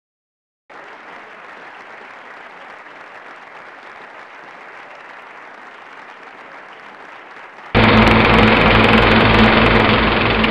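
Theatre intro sound effect: a soft, even audience-like hiss, then about three-quarters of the way through a sudden, much louder burst of applause with music under it.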